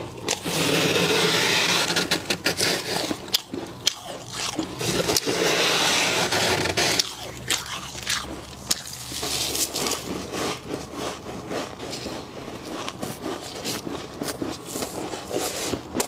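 Gloved hands scraping and scooping thick, fluffy frost off the inside walls of a chest freezer, the ice crystals crunching and crackling. There are two long scrapes in the first half, then a run of lighter crackles and crunches.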